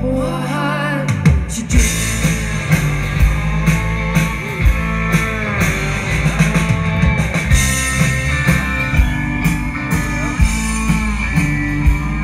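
Live rock band playing an instrumental passage: electric guitars with bending, wavering notes over a drum kit keeping a steady beat.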